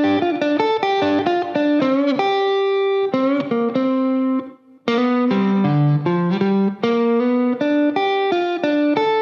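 Electric guitar playing a single-note blues lick, quick notes with a couple of string bends, in two phrases split by a short break about halfway through.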